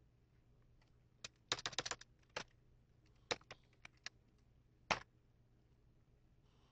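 Faint keystrokes on a computer keyboard: a quick run of taps about one and a half seconds in, then single taps spaced out, the last and loudest about five seconds in.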